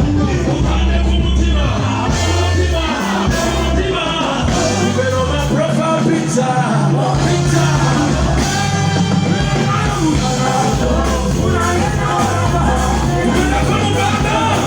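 Loud amplified music with a singer, over a strong, stepping bass line.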